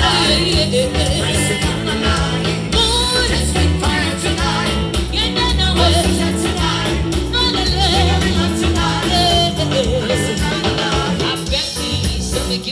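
Live band music with a woman singing lead and backing singers, over a steady, heavy bass beat.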